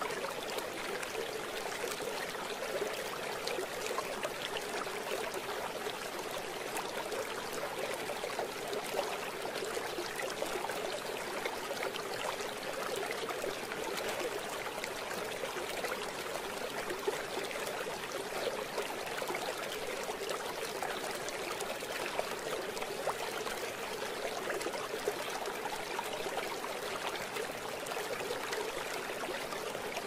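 Shallow stream flowing over rocks: a steady babbling rush of water with small splashes scattered through it.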